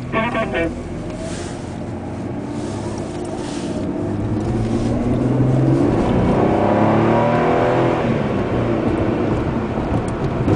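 Car engine and tyre noise heard from inside the cabin while driving. It grows louder about halfway through as the engine pulls harder, and its pitch climbs briefly.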